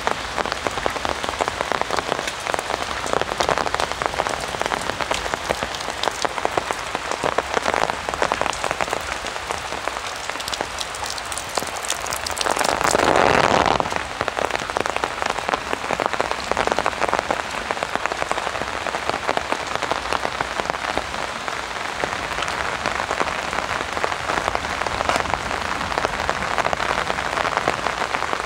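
Heavy rain falling on an umbrella: a dense, steady patter of drops. About halfway through, a louder rushing swell lasts about a second and a half.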